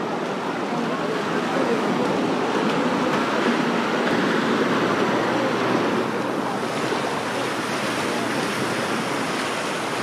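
Small waves breaking and washing up the sand, a steady surf hiss, with the chatter of many beachgoers mixed in.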